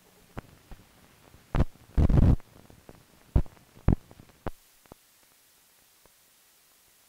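Irregular loud thumps and pops from a worn old film soundtrack, about six in the first few seconds with the longest about two seconds in, then only faint hiss.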